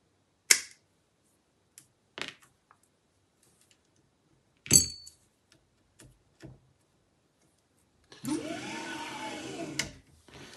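Sharp snips and clicks of side cutters and plastic tubing being handled, the loudest about five seconds in. Near the end comes a mechanical whir of about a second and a half whose pitch rises and then falls.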